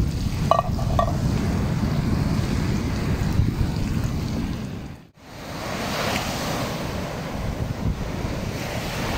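Wind buffeting the microphone over the wash of surf on a beach, with two brief high notes about half a second and a second in. The sound cuts out sharply about five seconds in and resumes with the rush of waves breaking on the shore.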